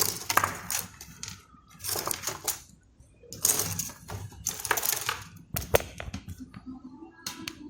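Small metal tools clicking and scraping on a PS4 Pro's power supply connector during a repair, in several short clusters with a few sharp single clicks.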